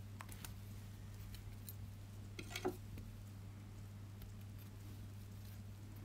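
Faint light clicks of small metal parts being handled: a thin gold bangle and a flat metal hand tool. One brief scrape comes a little before halfway. A steady low hum runs underneath.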